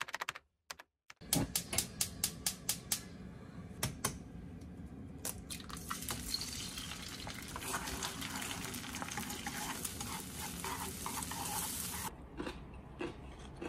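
Kitchen work: a quick run of clicks and taps of utensils on dishes, then a steady hiss with scattered clinks that cuts off abruptly near the end.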